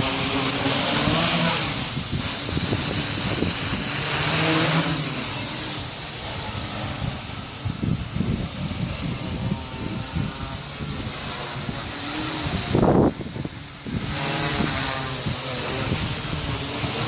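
Hexacopter's six electric motors and propellers whirring in flight, their pitch rising and falling as the throttle changes, over a steady high whine. Wind buffets the microphone, and there is a brief louder surge about 13 seconds in.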